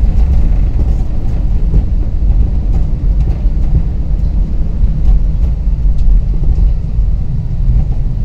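Cabin noise of an airliner rolling along the runway after touchdown: a steady, uneven low rumble from the jet on the ground, with a faint click about six seconds in.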